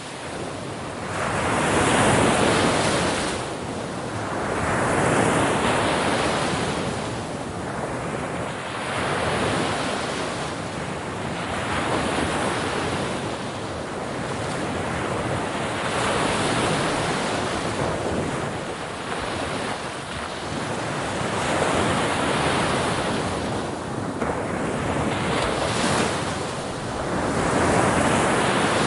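Sea waves breaking on a shore, one surge after another about every three to five seconds, each swelling and then hissing away.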